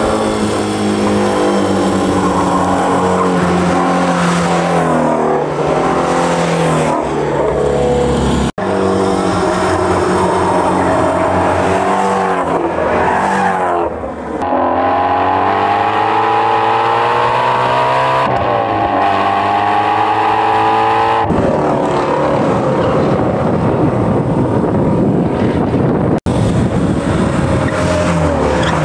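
Ford Mustang Shelby GT350 flat-plane-crank V8s at hard throttle on a race track, the engine note climbing and dropping through upshifts and lifts as the cars lap and pass. The sound jumps abruptly a few times, between separately recorded passes.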